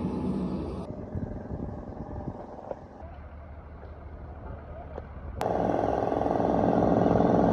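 Road traffic noise in a few short, abruptly cut segments, then a loud, steady, pitched drone for about two seconds near the end that stops suddenly.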